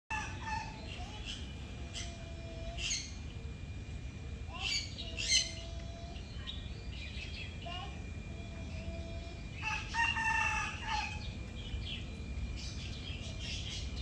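Small birds chirping in short, sharp calls, scattered through the first few seconds, with a rooster crowing once for just over a second about ten seconds in. A faint steady high tone runs underneath.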